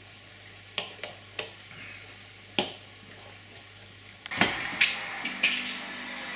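Tableware clinking and knocking: a few separate sharp clicks, then a quicker cluster of knocks near the end, like glasses and dishes being handled on a table.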